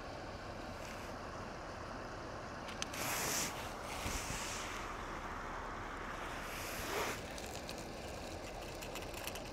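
Steady rush of a shallow river flowing over rocks, with wind. A few short splashes of water about three, four and seven seconds in, as hands dip into the river.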